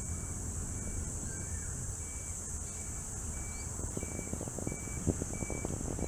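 Low wind rumble on the microphone and road noise from a bicycle rolling along a paved path, under a steady high-pitched insect drone. A short high note repeats about every two-thirds of a second, and the rumble grows gustier in the second half.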